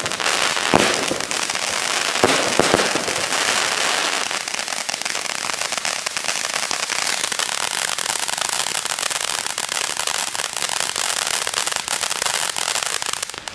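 A 34-shot consumer (category F2) firework cake firing: about three sharp bangs of bursting shots in the first three seconds, then a dense, continuous crackling of crackle stars that cuts off abruptly near the end.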